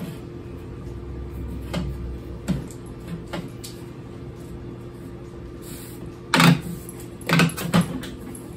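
Hard plastic knocks and clunks as a humidifier's plastic tank lid and outlet hose are handled and fitted: a few light taps, then a louder clunk about six and a half seconds in and two more close together a second later.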